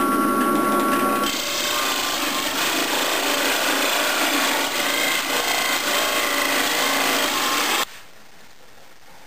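Drill press boring through plywood with a large-diameter bit: the motor runs with a steady whine, then about a second in the bit bites into the wood and a rough cutting noise takes over. It stops abruptly near the end.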